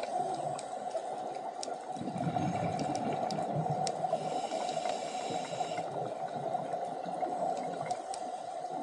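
Underwater sound of a scuba dive: a steady water hiss with scattered sharp clicks, and from about two to six seconds in a gurgling rush of bubbles, typical of a diver exhaling through a regulator.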